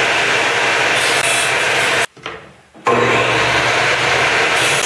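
Table saw running and cutting thin plywood, a steady dense cutting noise over the motor's hum. The sound drops out abruptly for under a second about two seconds in, then comes straight back at full level.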